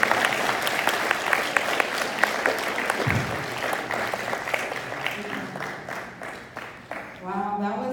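Audience applauding, the clapping dense at first and thinning out after about five seconds, with voices starting up near the end.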